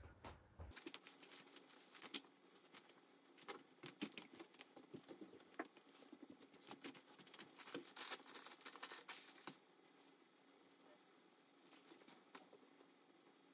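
Faint scattered taps and rustles of small objects and cloth being handled while toys are tidied off a floor mat; they stop about nine and a half seconds in, leaving near silence.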